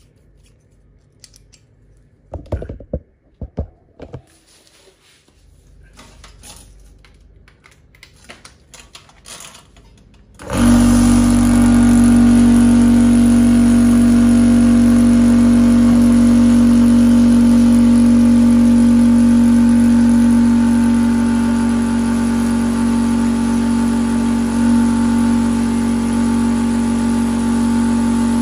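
A few clicks and knocks of handling, then about ten seconds in an electric high-pressure PCP air compressor starts abruptly and runs with a steady hum. It is pumping air in to test whether the repaired air-rifle valve still leaks.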